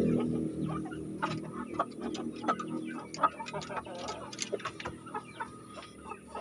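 Young koytrad roosters clucking softly in a wooden cage, with many short ticks and knocks scattered through.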